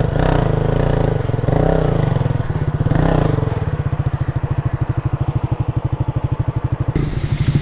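Motorcycle engine blipped in three short revs, then settling to an even, pulsing idle for a few seconds before an abrupt change near the end.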